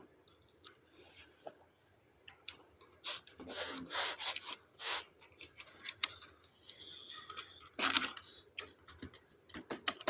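Computer keyboard being typed on: irregular bursts of key clicks, with a short pause about two seconds in.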